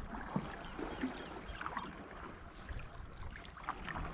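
Water lapping and sloshing in small irregular splashes, with a low wind rumble on the microphone.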